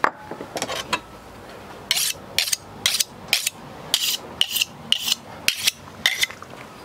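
Kitchen knife being sharpened by hand on a small handheld sharpening stone: about ten quick scraping strokes of the blade, roughly two a second, starting about two seconds in.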